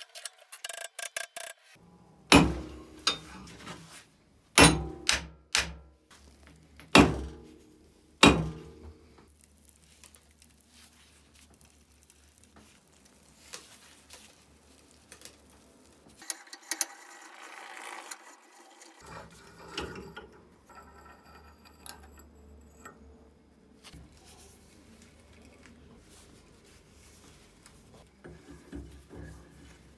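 About six sharp metallic knocks on a rusty, seized bench vise in the first eight seconds or so, each ringing briefly, followed by quieter handling sounds.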